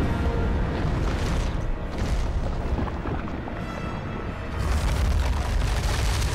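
Film soundtrack of a fire-monster battle: orchestral music mixed with deep booms and rumbling, growing louder about four and a half seconds in.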